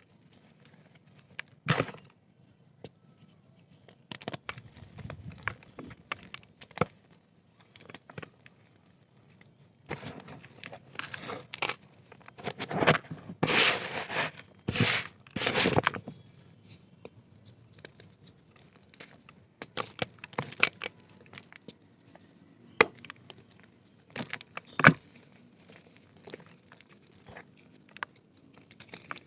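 Dry black dirt crunching and crackling as it is crumbled, with scattered sharp cracks, a denser, louder run of crunching about halfway through, and a few single loud cracks near the end.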